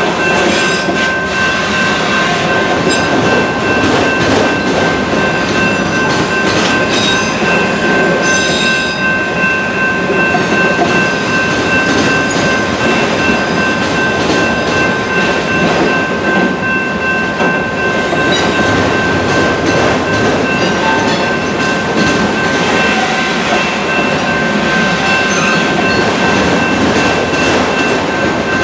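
Freight train of autorack cars rolling past at close range: a steady rumble of wheels on rail, with a continuous high-pitched wheel squeal as the cars round the curve of the wye. A few clanks come in the first several seconds.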